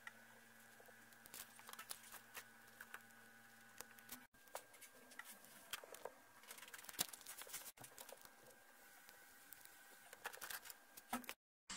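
Near silence with faint, scattered clicks and taps as small parts of a lithium battery pack (its circuit board and plastic case) are handled on a workbench. A faint steady hum stops about four seconds in.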